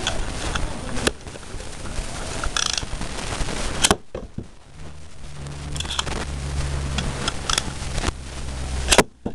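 Beyblade spinning tops clashing and scraping in a plastic stadium: a run of sharp clicks and rattles, with two loud knocks, one about four seconds in and one near the end, and a steady low hum through the second half.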